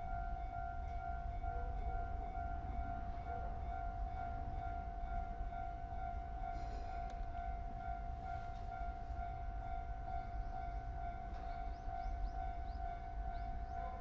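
Japanese railway level-crossing alarm ringing with a steady electronic bell tone, the warning that a train is approaching, over a low rumble.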